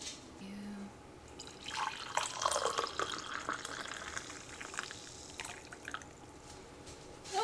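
Water running and splashing with small drips, strongest from about a second and a half in until about six seconds.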